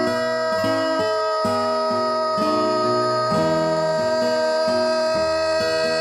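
Background music: plucked-string melody over a steady held high note.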